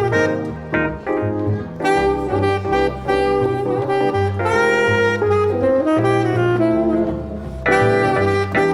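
Tenor saxophone playing a jazz melodic line of connected notes over lower accompanying chords from guitar and piano.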